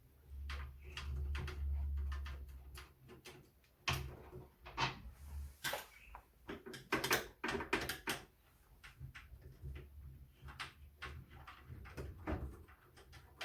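Screwdriver work on the floppy drive mounting screws of a Compaq Portable computer: scattered clicks and knocks of the screws and metal parts being handled, with a low rumble of handling in the first couple of seconds.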